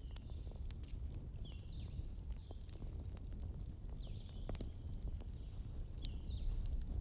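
Fireplace fire crackling, with scattered sharp pops over a low steady rumble. Several short falling chirps come and go through it.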